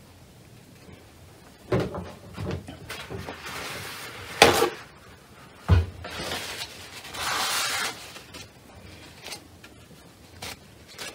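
Handling noises from a watercolour painter's brush and palette as the brush is reloaded with paint: a few light knocks, one sharp click, a low thump, and two spells of scrubbing rustle.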